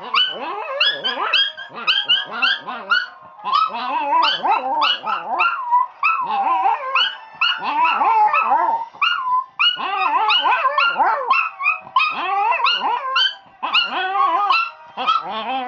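A Yorkshire Terrier and a Chihuahua howling together: long, wavering howls that rise and fall and overlap one another, with only brief breaks.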